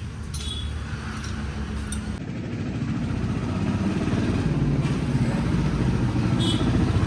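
Motorcycle engine running with an even low throb, growing steadily louder.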